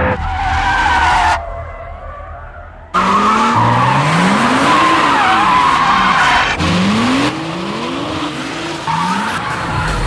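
BMW 2 Series coupés drifting, with tyres squealing and engines revving in repeated rising sweeps. There is a brief lull about a second and a half in.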